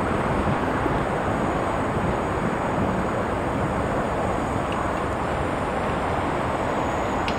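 Steady rumble of road traffic with no distinct events.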